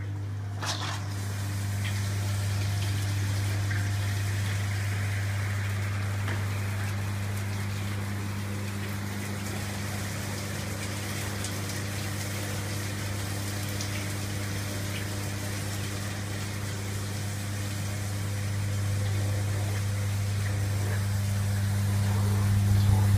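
Spray booth running: a steady electric hum from its fan motor over a rushing flow noise. It gets louder near the end.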